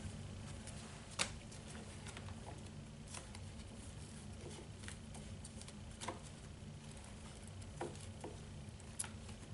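Faint papery taps and rustles of handmade greeting cards being flipped through one by one in a storage box, a light tick every second or so, the sharpest about a second in, over a low steady hum.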